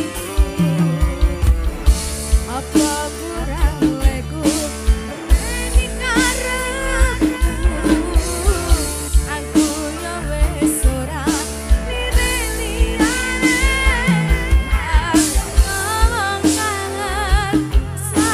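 Music from a campursari group, with a woman singing over drums, bass and melody instruments in a steady beat.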